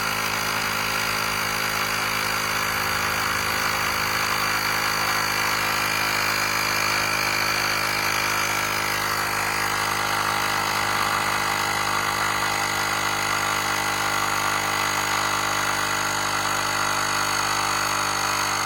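Cordless portable air compressor running steadily as it inflates a zero-turn mower's front tire: a loud, even motor-and-pump drone with a high whine.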